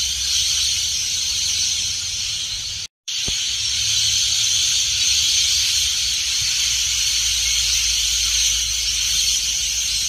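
Dense, continuous chirping chorus from a large flock of birds in flight overhead, cut by a brief total silence about three seconds in.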